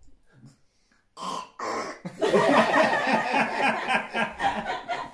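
Several people, a toddler among them, laughing loudly and together from about two seconds in, after two short vocal sounds.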